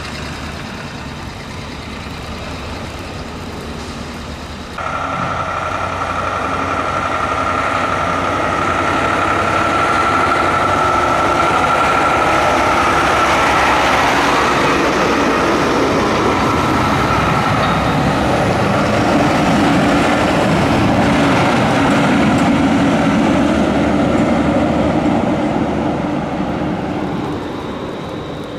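A heavy engine running steadily. It gets abruptly louder about five seconds in, with a steady whine added, stays loud through the middle and eases off near the end.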